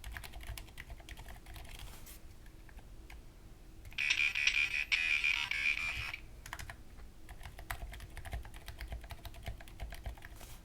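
Typing on a mechanical keyboard with stock 78 g Aliaz switches and SA-profile keycaps: a steady patter of key clicks. About four seconds in, the keyboard's small built-in speaker cuts in for about two seconds with a harsh, buzzy, garbled text-to-speech voice, then the typing resumes.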